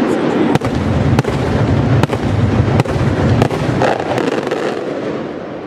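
Aerial firework shells bursting in quick succession: a string of sharp bangs, about one every half second to second, over a continuous rumble from the barrage, fading near the end.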